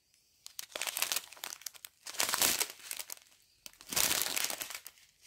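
Small clear plastic bags of round diamond-painting drills being handled, the thin plastic crinkling in three short bouts.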